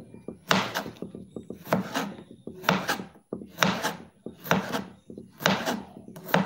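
Kitchen knife slicing a cucumber thin on a cutting board: a run of sharp, unevenly paced chops as the blade hits the board, about ten in all.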